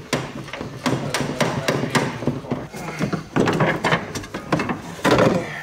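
Repeated metal knocks and hammer blows, several a second and irregular, as the stuck factory rear shock and spring unit of a 2006 Dodge Viper is worked loose from its mounts.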